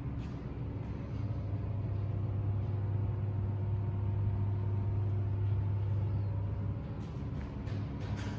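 Steady low machine hum with a few faint clicks near the end.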